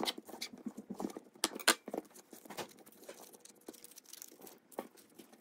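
Chef's knife cutting through soft beeswax honeycomb and tapping the wooden cutting board: a run of irregular small clicks and knocks, the loudest about a second and a half in, fewer and quieter after that as the pieces are handled.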